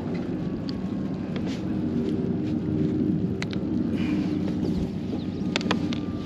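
Steady low motor drone with wind noise on the microphone, broken by a few sharp clicks about three and a half and five and a half seconds in.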